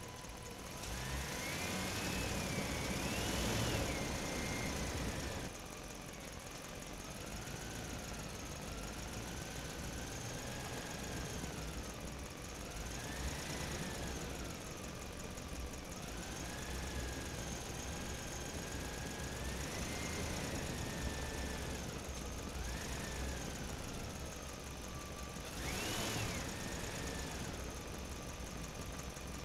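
Engine sound revving up and down again and again, a whine that slowly rises and falls in pitch. It runs loudest for a few seconds near the start and again near the end.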